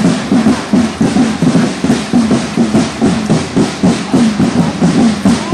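Snare drums beating a marching cadence, a quick, steady rhythm of evenly spaced strokes.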